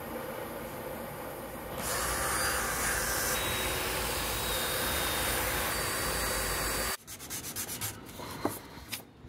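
A torch hisses steadily on the wood for about two seconds. Then a cordless DeWalt drill spins a blue abrasive wheel against the charred surface, brushing off the soot; this is the loudest part. About seven seconds in it stops suddenly, and hand sanding follows with uneven rubbing strokes.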